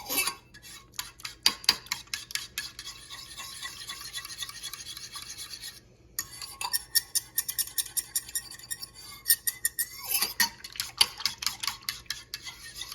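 A spoon stirring Jello powder into hot water to dissolve it, with fast continuous scraping and clinking against the container. The stirring stops briefly about six seconds in, then resumes.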